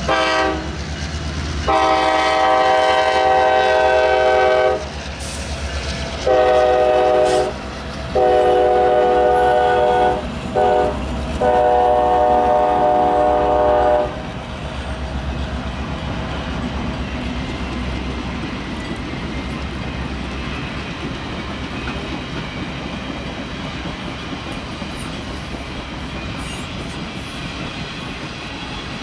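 Air horn of a passing diesel locomotive, an EMD F9A leading a passenger excursion train, sounding five blasts: a long first one of about three seconds, a shorter one, a long one, a brief one and a final long one that ends about 14 seconds in. After that comes the steady sound of the passenger cars rolling past on the rails.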